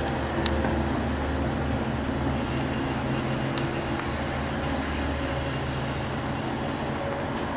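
Long Island Rail Road diesel locomotive engine running steadily with a low rumble, a few faint clicks over it.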